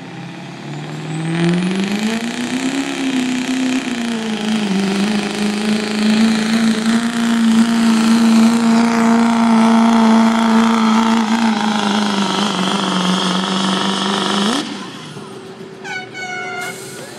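Chevrolet Silverado 2500HD's Duramax turbodiesel V8 at full throttle, pulling a weight-transfer sled. The revs climb over the first couple of seconds, then hold steady under heavy load for about ten seconds, and the sound cuts off suddenly near the end.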